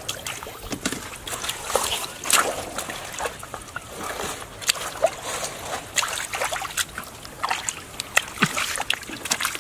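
Hands groping and grabbing in shallow muddy water among stranded catfish: irregular small splashes and sloshes, some sharper than others.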